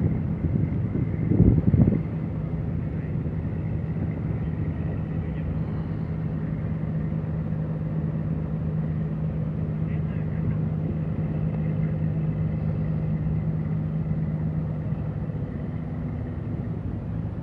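Boat engine running with a steady low hum; the hum shifts slightly near the end. A brief louder noise comes about a second and a half in.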